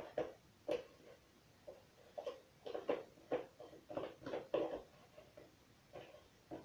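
Cake batter being poured and scraped from a mixing bowl into a cake pan: a series of short, irregular scrapes and knocks, busiest in the middle of the stretch.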